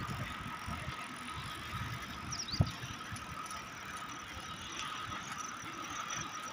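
Bicycle being ridden along a paved road, with a steady high-pitched squeal and low wind rumble on the microphone. A single sharp click about two and a half seconds in.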